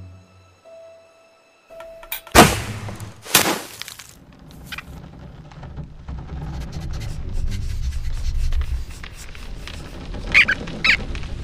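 Cartoon sound effects: two sharp whooshing hits about a second apart, then a low rumble that slowly builds, with two short high squeaky chirps near the end.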